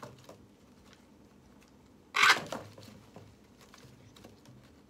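Harlequin macaw chick being hand-fed by syringe gives one short, loud, harsh call about two seconds in, with faint soft clicks around it.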